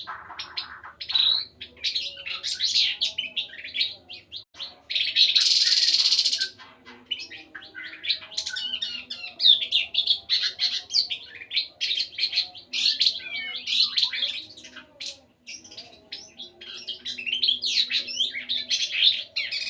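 A tepus (tit-babbler) sings a rapid, varied song of chirps and trills that rise and fall, with short pauses. About five seconds in comes one harsh, hissing call that lasts about a second and a half.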